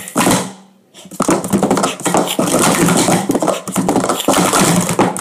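Speed Stacks plastic sport-stacking cups clattering on a stack mat as they are rapidly stacked up and down in a timed run: a short burst of clatter at the start, then fast, continuous clicking and knocking of cups from about a second in.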